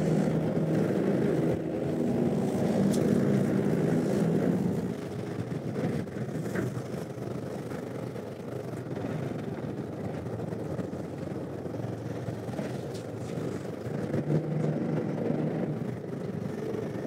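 Fishing boat's engine running, with wind and sea noise on deck in rough, swelling water; louder for the first few seconds, then a steadier lower rumble.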